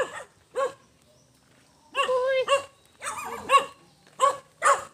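Dogs barking at approaching strangers: a loose series of short barks, with a pause of about a second and a half after the first two.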